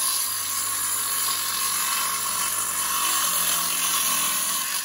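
DeWalt handheld circular saw running steadily while it rips through a sheet of plywood. It is switched off right at the end and begins to wind down.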